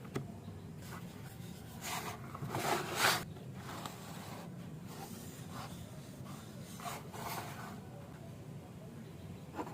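Rubbing and scraping on wood in about half a dozen short, irregular strokes, the loudest near the start, over a faint steady low hum.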